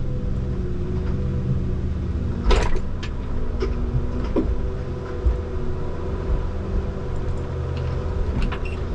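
Komatsu 901 harvester running steadily, heard from inside its cab, with a constant engine drone and higher steady whines as the crane and harvester head work through brush. A sharp knock comes about two and a half seconds in, with a few lighter clicks around it.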